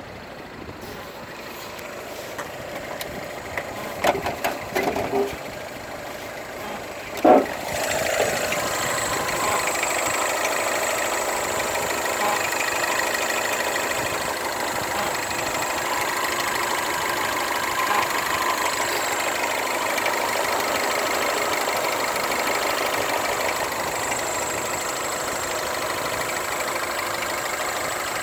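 A few clicks and a sharp knock, then about seven and a half seconds in an engine starts and settles into a steady idle that runs on unchanged. The idle carries the strange noise the owner is recording.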